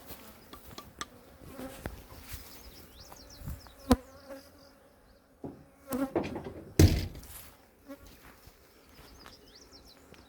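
Honeybees buzzing as they leave a newly opened hive and fly around to reorient after being moved, the buzz swelling and fading as bees pass close by. A few sharp knocks cut in, the loudest about two-thirds of the way through.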